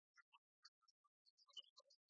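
Near silence, with faint, scattered brief high-pitched blips at shifting pitches.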